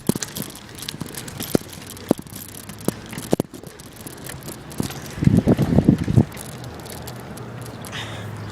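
Handling noise from a handheld camera: scattered clicks and knocks, then a second-long burst of rumbling about five seconds in, followed by a faint low hum.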